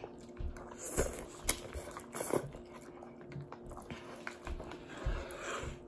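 Eating sounds: instant noodles being slurped and chewed, with a few short clicks from a plastic fork in the noodle cup.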